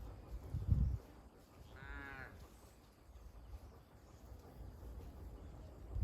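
Cattle eating soil: low chewing and muzzling thuds, the loudest about a second in. About two seconds in comes a single drawn-out animal call lasting about half a second.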